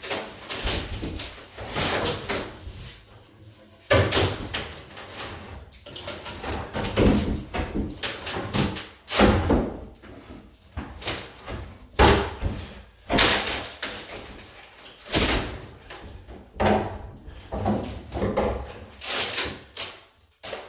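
Repeated heavy blows on a wooden cabinet being demolished: irregular bangs and knocks, about one or two a second, with rattling and scraping between them.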